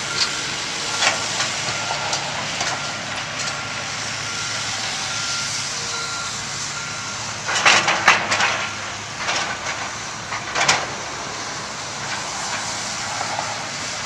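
Heavy-equipment backup alarm beeping steadily over diesel engines running. About halfway through, two loud clattering crashes follow: concrete chunks dropped into a steel roll-off container.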